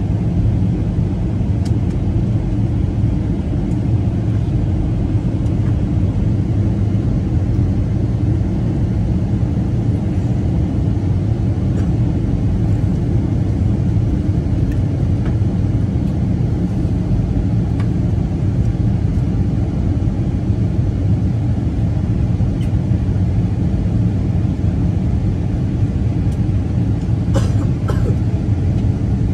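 Steady low rumble inside a Boeing 737-900ER's passenger cabin in flight: engine and airflow noise, with a couple of brief clicks near the end.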